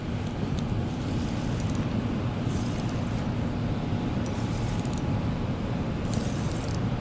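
Steady rushing of water from the dam, with a few faint clicks of gear being handled.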